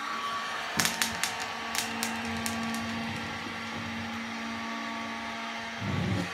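Heat gun blowing steadily as it melts the edge of folded bubble wrap to seal it, with a scatter of sharp pops and crackles from the bubbles bursting in the first couple of seconds. A dull low knock comes near the end.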